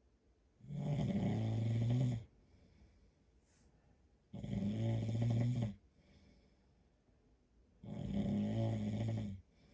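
A man snoring, three long, deep snores about three and a half seconds apart, with quiet between each breath.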